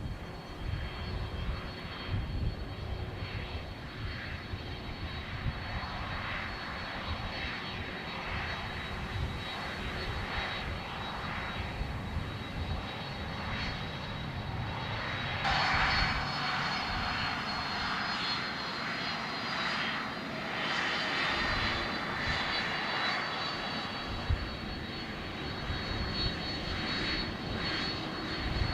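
Jet airliner's turbofan engines at takeoff thrust: a steady roar with high whining tones, growing louder about halfway through.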